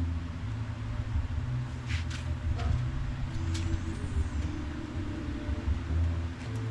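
A vehicle engine running steadily with a low rumble and a faint steady hum, with a few light clicks about two and three and a half seconds in.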